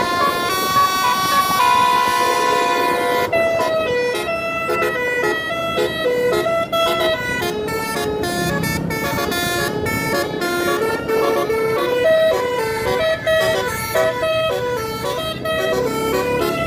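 Tour bus's multi-tone basuri (telolet) horn playing a melody: a few long held notes at first, then a quick run of short notes stepping up and down.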